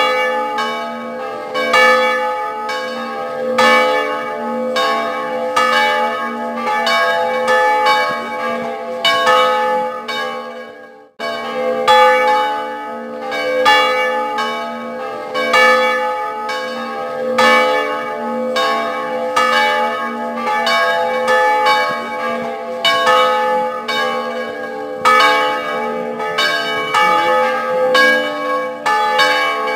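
Church bells ringing in a continuous peal, several bells of different pitch struck in quick, uneven succession, each strike ringing on. The ringing cuts out abruptly about eleven seconds in and resumes at once.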